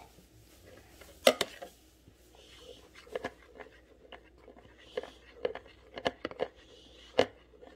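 Irregular light clicks and taps of a stirring utensil against a container while wood glue and liquid glue are mixed for slime, with one sharper click about a second in.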